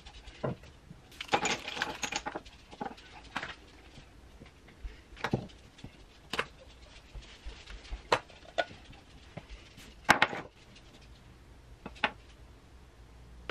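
Small nail-product containers (glitter jars, brush tubes and gel polish bottles) picked up and set down on a wooden tabletop: scattered clicks and taps, roughly one every second or so, with a busier patch of handling in the first couple of seconds.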